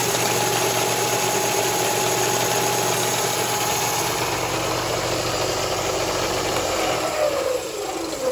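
Delta 6-inch belt / 9-inch disc sander running with its sanding belt moving: a steady motor hum and whir. Near the end its whine falls in pitch and gets quieter as the machine winds down.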